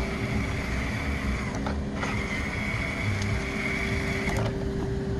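Small electric drive motor and gearbox of an RC Bruder Volvo A60H dump truck conversion running under throttle: a high whine comes in briefly at the start and again from about two seconds in for a couple of seconds, over a steady hum and a low rumble.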